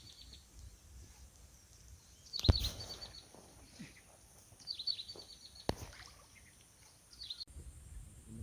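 A bird calling in short, high chirping trills, three times, over a steady high hiss. Two sharp knocks come in between, the first about two and a half seconds in and the loudest sound.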